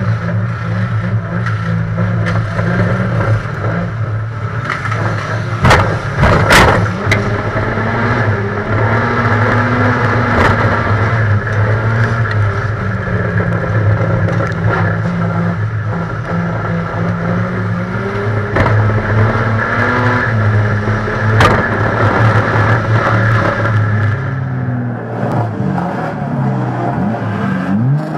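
Banger race car's engine running hard, heard from inside the stripped-out cabin, its note wavering with throttle. There are loud bangs of body contact about six seconds in and again about 21 seconds in. Near the end the engine note rises and falls as it revs.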